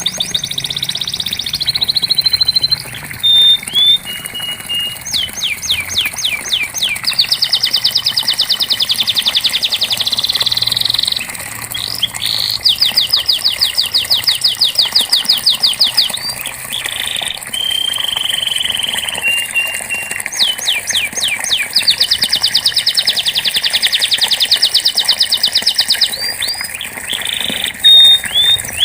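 Domestic canary singing a long song made of trills: runs of rapidly repeated sweeping notes, one tour after another with short breaks between.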